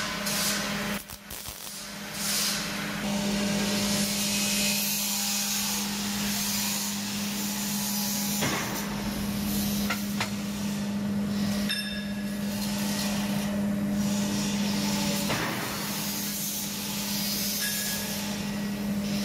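Stick welding on steel: the arc's rough crackling hiss over the welder's steady low hum, with several abrupt breaks.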